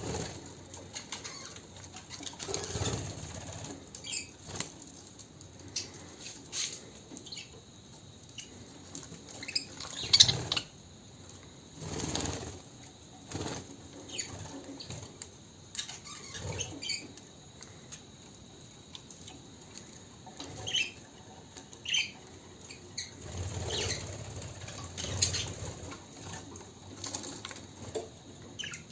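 Budgerigars fluttering their wings in irregular bursts, with short chirps in between; the loudest flutter comes about ten seconds in.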